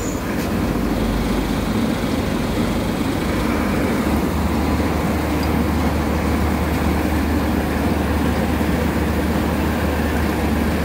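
Gautam 949 combine harvester's engine idling, a steady low drone whose lowest hum shifts slightly about four seconds in.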